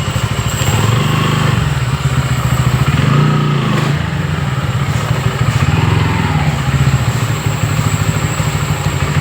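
A 160 cc motorcycle engine running under way while being ridden, its pitch rising and falling with the throttle.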